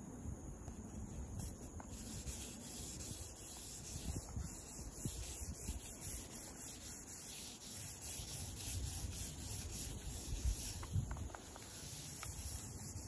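A charcoal stick laid flat and rubbed back and forth across sketchbook paper: a dry, scratchy rubbing in repeated strokes, starting about two seconds in.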